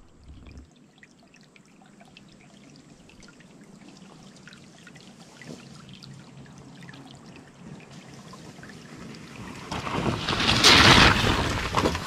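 Fat-tire electric bike riding up the dirt trail and through a muddy puddle, its tyres splashing through the water. The sound builds over the last few seconds and is loudest about ten to eleven seconds in as the bike passes close by.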